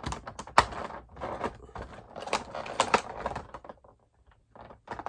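Rigid clear plastic packaging being cut and pried at with a knife and fingers: a run of irregular clicks, taps and crackles, the sharpest about half a second in, with a short lull near the end.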